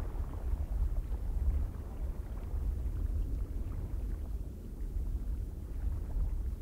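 Strong wind blowing steadily, with a deep low rumble that swells and eases a little, like gusts buffeting the microphone.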